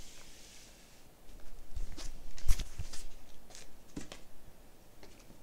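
Handling of vinyl LP jackets in clear plastic outer sleeves: scattered rustles and taps, with a soft thump about two and a half seconds in and another knock about a second and a half later.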